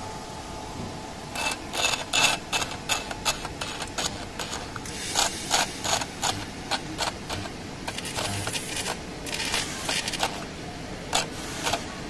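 Electrospark (EDM) coating torch of an SZ-BF100 tungsten carbide coating machine sparking against a stainless steel plate. It makes irregular bursts of sharp crackling snaps as the electrode deposits its coating, starting about a second in, over a steady low hum.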